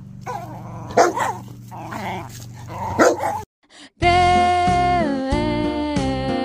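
A dog barking, with two loud barks about two seconds apart over a low music bed. The sound cuts out briefly, then background music with a held melody starts about four seconds in.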